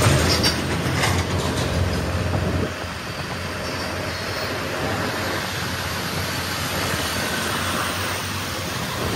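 Motor scooter riding through traffic: wind rush on the microphone and road rumble over the scooter's small engine running. The low rumble eases a little about three seconds in.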